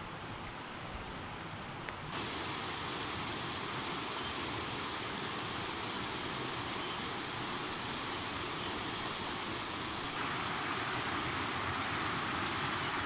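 Steady rushing of a mountain stream flowing over rocks, starting as a quieter hiss, then stepping up about two seconds in and again near the end as the water is closer and faster.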